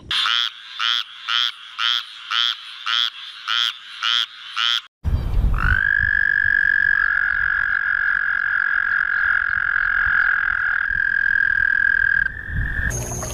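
A green tree frog calling in a rapid series of short croaks, about two a second. Then an American toad's long, steady, high-pitched trill, held for about seven seconds, with a short higher note at its end.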